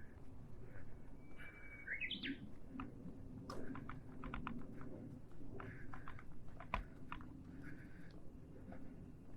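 Wild birds chirping and calling, with one whistled call climbing in steps about two seconds in. Scattered sharp clicks of footsteps on a mountain path run underneath.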